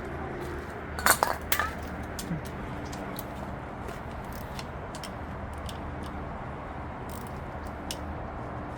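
A few sharp metallic clinks of tools and engine parts about a second in, over a steady low hum.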